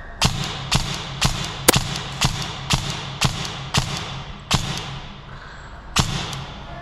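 Krytac electric airsoft rifle firing in semi-auto, about ten sharp single shots at roughly two a second, with a pause before the last one near the end.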